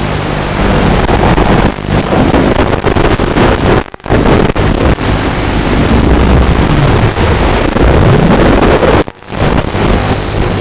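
Walkera F210 racing quadcopter's brushless motors and propellers whining, the pitch rising and falling with the throttle as it flies, mixed with wind noise. The sound drops out briefly twice, about 4 seconds in and again near 9 seconds.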